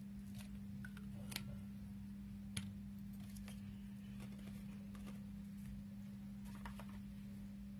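Faint, scattered clicks and taps of lipstick tubes and small cosmetic containers being handled and set down on a table, over a steady low hum.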